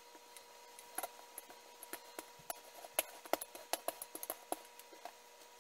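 Wooden rolling pin rolling out pie dough on a floured steel counter, giving irregular light clicks and knocks several times a second, over a faint steady hum.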